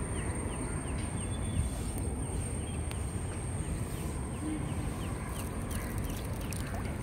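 Shallow river water sloshing and churning around a nylon hand net being worked among rocks. Behind it are a thin, steady high whine and faint quick chirps that repeat a few times a second.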